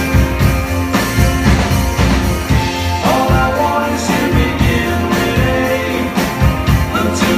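Live rock band playing: electric guitars, bass guitar and a drum kit keeping a steady beat.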